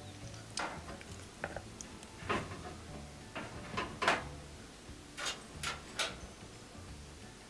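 Irregular light clicks and scrapes of metal parts being handled as a gas oven's new thermocouple is worked into its bracket and its retaining clip fitted, about eight in all, the loudest about four seconds in.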